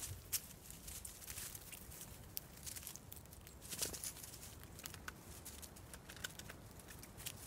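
Small birds pecking seed from a stone dish: faint, irregular taps and clicks of beaks on seed and stone, with a couple of louder ticks about half a second in and near the middle.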